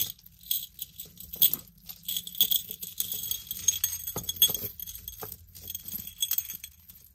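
Metal chain necklaces and charms clinking and jangling as they are handled and laid on a table, in short, irregular jingles.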